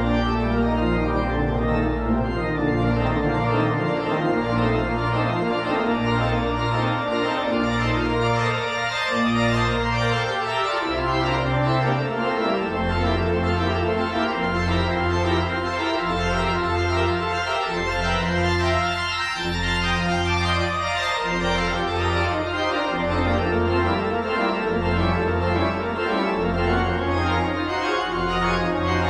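Organ music playing: sustained chords over a bass line that moves to a new note about once a second.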